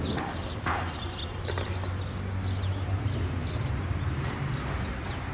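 Small birds chirping: short, high, falling chirps about once a second, over a steady low hum.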